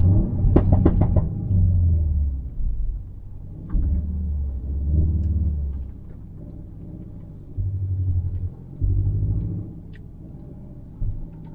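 Low vehicle rumble that swells and fades several times, loudest near the start.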